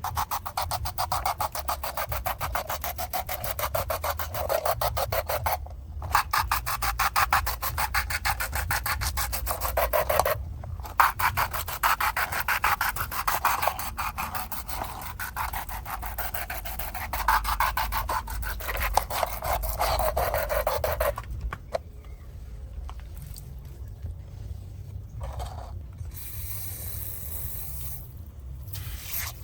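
Rapid, rasping back-and-forth scrubbing on a small diecast model car, with two brief pauses, stopping about 21 seconds in. After that it goes quieter, with a short hiss near the end.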